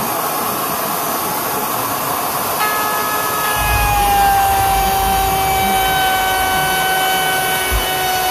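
Table-mounted router running, then cutting a 1/4-inch groove in a board fed along the fence from about three seconds in, with a steady whine that sags slightly lower under the load of the cut.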